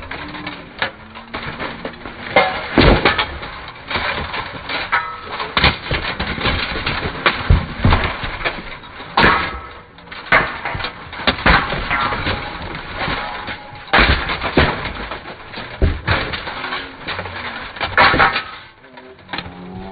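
Blunted steel swords and axes clanging and thudding irregularly on steel helmets, plate armour and shields in a buhurt melee, a dense run of strikes with several loud hits among them.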